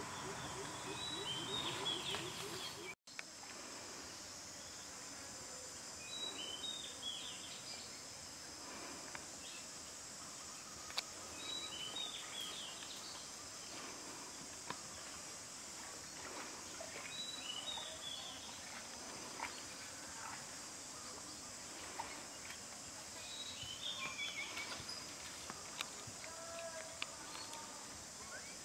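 Outdoor ambience: a steady high-pitched insect drone, with a bird's short chirping phrases every few seconds and a few small clicks. A different low pitched sound fills the first three seconds and breaks off in a brief dropout.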